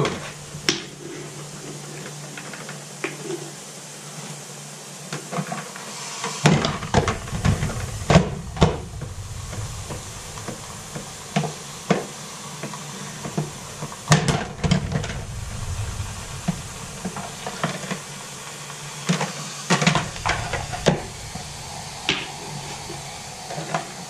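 Drip coffee maker brewing, with a steady hiss of steam, while scattered sharp knocks and clicks come from its lid being prodded with a long rod.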